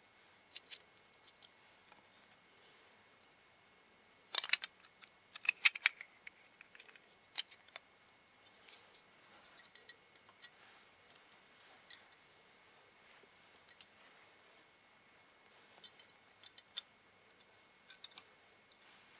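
Small plastic parts of a disassembled Astroswitch toy being handled and set down: scattered light clicks and taps, with a cluster of louder clacks about four to six seconds in.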